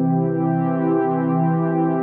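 Slow ambient background music of sustained, held chords.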